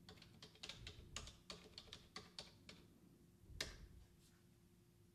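Faint computer keyboard typing: a quick run of about a dozen keystrokes, then one firmer key press about three and a half seconds in as the command is entered.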